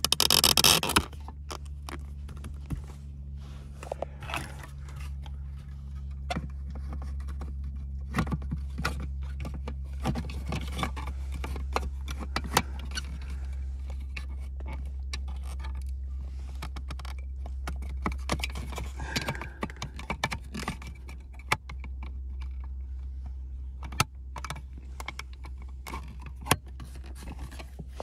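Plastic centre-console trim being handled and pushed into place: scattered clicks, knocks and plastic scraping, with a loud rustle in the first second and a steady low hum underneath.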